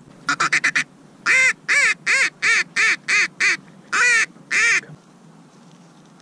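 Goose call blown by a hunter: a quick run of five short clucks, then about ten loud honks at a steady pace of roughly three a second, calling to geese over decoys.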